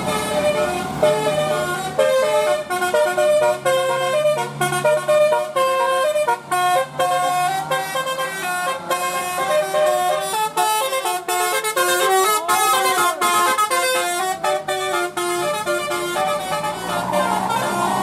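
Bus telolet horn, a multi-tone musical air horn, playing a melody as a quick run of stepped notes, with a brief rising-and-falling glide a little past the middle.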